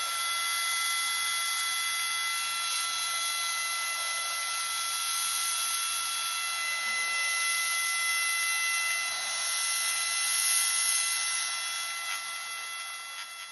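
Kolektor COR Liquishot cordless pressure sprayer running steadily, its electric pump motor giving a high whine over the hiss of a fine water spray. It eases off near the end.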